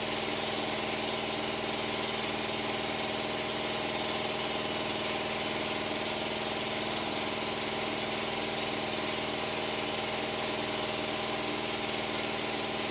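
An engine idling steadily: a constant mechanical hum with several steady tones that does not change.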